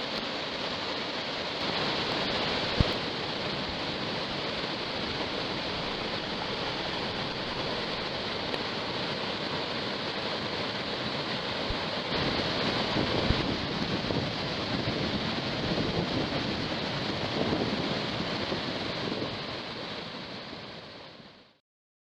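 Steady rush of water from heavy typhoon rain and run-off, with some wind noise on the microphone and a few sharp knocks. The sound fades out near the end.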